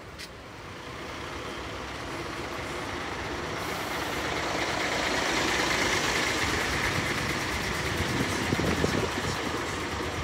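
A single-deck bus driving slowly past close by, its engine and tyre noise growing louder over the first several seconds and then holding.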